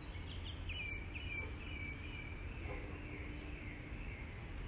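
Outdoor ambience: a steady low rumble under high-pitched chirping, a quick series of short chirps about half a second in running into a wavering trill.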